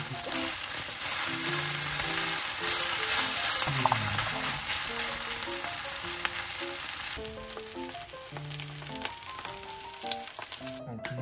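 Pork-jowl fried rice sizzling and frying in a hot pan, a dense crackling hiss that eases off about seven seconds in.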